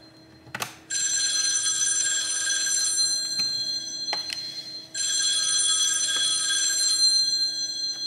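A phone ringing: two rings of about two seconds each, the first starting about a second in and the second about five seconds in. A few light clicks sound between them.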